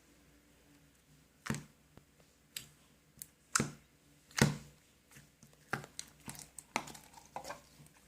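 Slime being squeezed and pressed by hand, giving irregular sharp wet clicks and pops, about a dozen, starting about a second and a half in.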